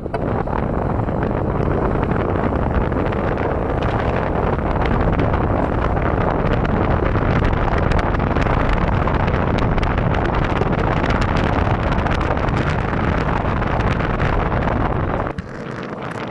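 Loud, steady rush of wind buffeting the microphone over a vehicle's rumble. About a second before the end it cuts abruptly to a quieter, thinner rush.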